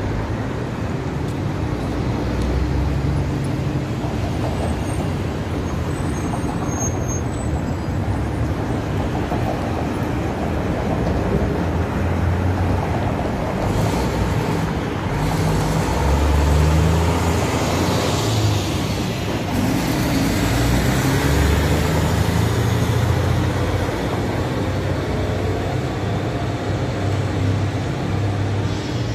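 Busy city street traffic with cars passing. A heavy diesel garbage truck's engine gets louder through the middle as it turns through the intersection.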